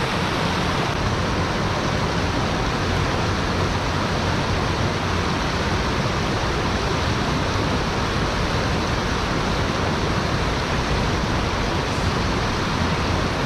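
Fast, shallow stream rushing over rocks below a small weir: a steady rush of white water.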